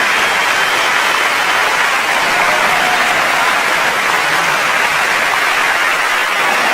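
Large crowd applauding: steady, dense clapping with faint cheering voices mixed in.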